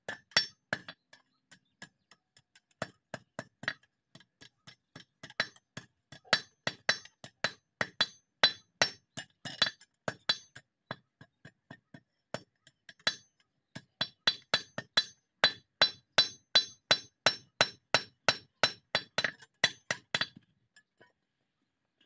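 Blacksmith's hand hammer forging a red-hot sickle blade on a steel anvil block: a run of rapid, ringing metal-on-metal blows, about three a second. The blows thin out briefly around the middle, then stop about two seconds before the end.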